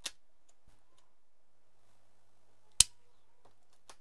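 Scissors snipping Kapton tape into small pieces: a sharp snip at the start and a louder one near three seconds in, with a faint click just before the end.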